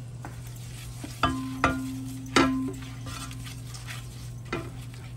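Wooden spoon stirring and scraping flour and brown gravy mix through hot drippings in a large nonstick pan, browning a roux for gravy. There are three sharp knocks of the spoon against the pan between about one and two and a half seconds in, each leaving a short ringing tone, and a steady low hum underneath.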